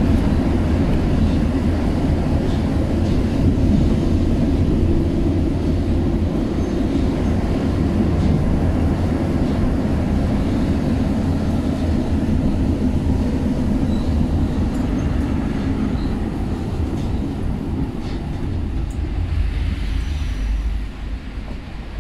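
Paris Métro train running through a tunnel, heard from inside the carriage: a loud steady rumble that eases off in the last few seconds as the train slows into a station.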